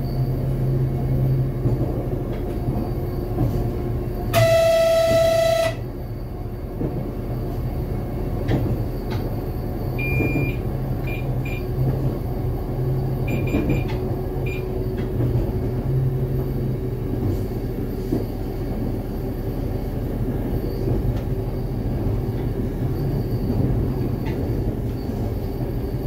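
RA2 diesel train running, heard from the driver's cab: a steady diesel drone with rail noise. About four seconds in, a single horn blast lasting about a second and a half; later, a few short high beeps in two small groups.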